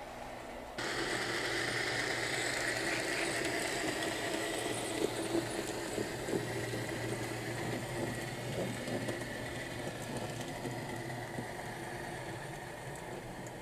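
HO scale model diesel locomotive running as it pulls a train of flatcars, with a steady high whine and a few sharp clicks from the wheels on the track between about five and six and a half seconds in. It starts suddenly about a second in and fades slowly as the train pulls away.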